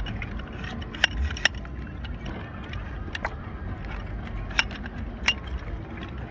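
Metal clicks and rattles of a folding stainless-steel jet-ski sand anchor being collapsed and locked for stowing: five or so sharp clicks, irregularly spaced, over a low steady rumble.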